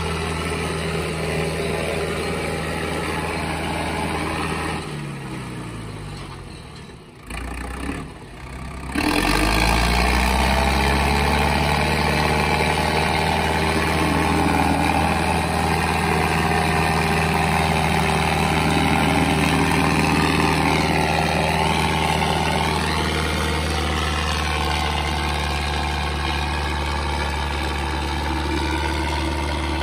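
Modified tractor's diesel engine running steadily. Its note falls and fades about five to seven seconds in, then comes back louder and higher about nine seconds in and holds at high, steady revs while the rear tyre spins on wet asphalt.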